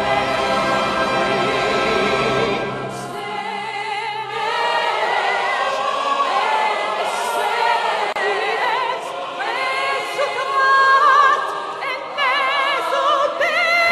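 Operatic soprano singing with a wide, even vibrato over a choir and orchestral accompaniment. The voice climbs higher and louder about ten seconds in.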